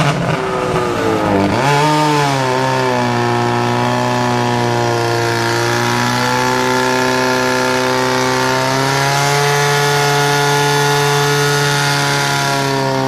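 Portable fire pump's engine running at high revs under load, driving water through the attack hoses. Its pitch dips and climbs over the first two seconds, then holds high and steady.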